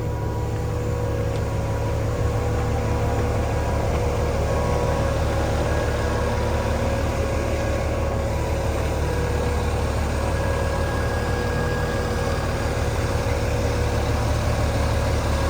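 Diesel engine of a Daewoo concrete pump truck running steadily at idle, a low hum with a constant tone.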